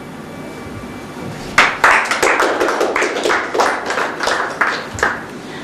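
A small audience applauding briefly, with separate claps heard. It begins about a second and a half in and stops about five seconds in.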